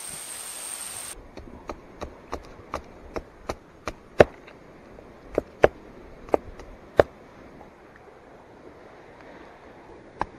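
Knife blade chopping into a wooden stick held against a log, shaping a stake: a run of sharp chops about three a second, then a few louder, slower strokes. The chopping pauses for a few seconds and resumes near the end.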